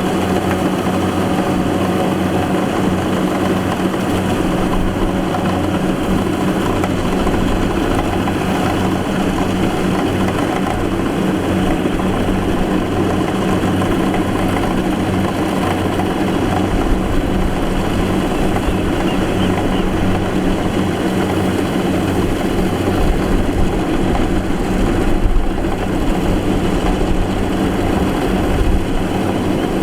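Rice combine harvester running steadily, a continuous engine hum with machinery noise, with a few brief louder clatters near the end.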